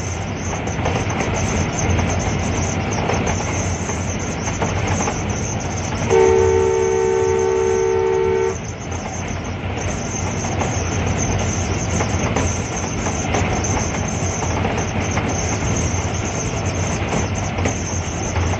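ZCU-30 diesel-electric locomotive running along the line, heard from its cab as steady engine and rail noise. About six seconds in, the locomotive horn sounds one long two-note blast of about two and a half seconds.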